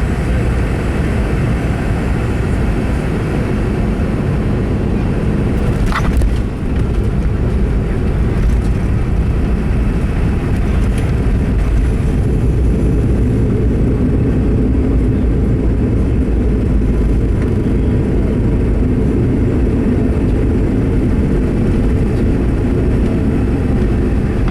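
Cabin noise of a Boeing 717-200 rolling on the ground after landing: a steady low rumble of its rear-mounted Rolls-Royce BR715 turbofans and the wheels, with a single sharp knock about six seconds in.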